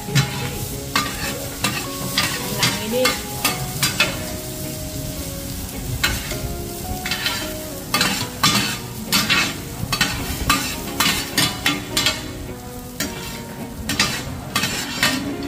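Metal spatulas scraping and clanking against a large flat frying pan, in quick irregular strokes, as fried hoy tod (crispy shellfish and bean-sprout pancake) is scooped off onto a tray and the pan is scraped clean. Leftover oil sizzles underneath.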